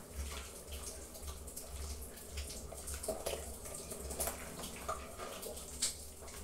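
Metal spoon stirring soup in a stainless steel pot: liquid sloshing, with many light clicks and taps of the spoon against the pot.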